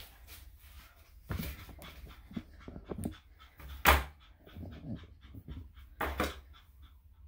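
Small Yorkshire Terrier panting quickly, about four breaths a second, while its paw is held for a nail trim it resists, with a few short sharp sounds, the loudest about four seconds in.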